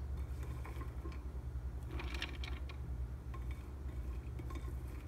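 Faint light clatter of squash and carrot pieces and plastic dehydrator trays being handled, with a soft rustle about two seconds in, over a steady low hum.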